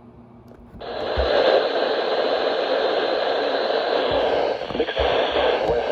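A RadioShack 12-519 radio's speaker comes on suddenly about a second in and plays a steady static hiss on the weather band, with no voice yet coming through.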